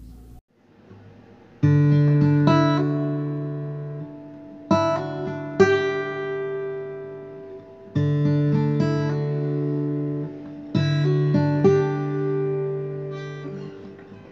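Background acoustic guitar music: chords strummed about every three seconds and left to ring, with single notes picked in between.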